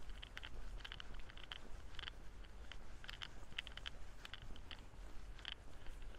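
Walking footsteps crunching on a path, about two steps a second, over a low steady rumble.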